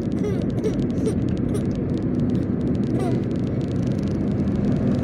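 Steady road noise inside a moving car: the engine runs with a low hum under the tyre noise, and many faint clicks sit on top of it.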